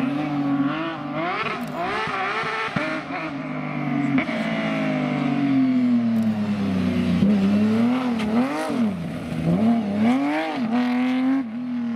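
Porsche rally car engine revving hard, its pitch climbing and dropping repeatedly through gear changes and throttle lifts, with one long falling sweep near the middle.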